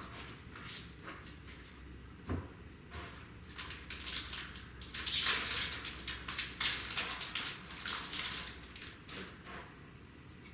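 Foil trading-card booster pack wrapper crinkling and tearing as it is opened: a dense crackle that builds about three seconds in and fades near the end, after a single soft knock about two seconds in.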